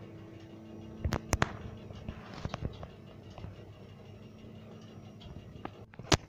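A steady low hum, broken about a second in by two sharp knocks close together. Scattered smaller clicks and crackles follow, and one more sharp click comes near the end.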